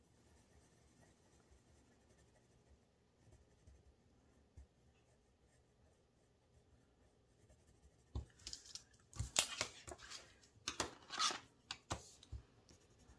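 Paper money and paper challenge sheets being handled: a few seconds of faint quiet, then from about eight seconds in a burst of crisp rustling and crinkling.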